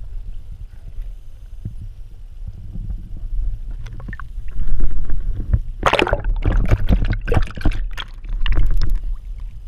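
Pond water sloshing and splashing around a GoPro as it bobs in and out of the water, over a low, dull rumble. The splashing sets in about four seconds in and is loudest in the middle, dying down near the end.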